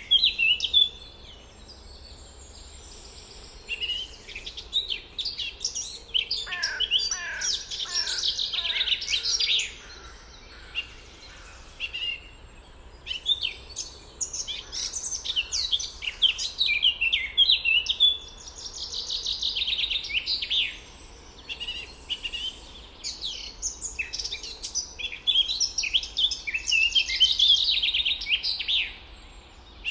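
Several songbirds singing in overlapping, rapid chirping phrases with short pauses between bursts. About six seconds in, a series of lower, falling notes runs for a few seconds.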